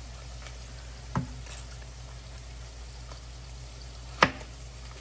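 Two sharp knocks over a steady low hiss and hum: a lighter one about a second in and a louder one about three seconds later.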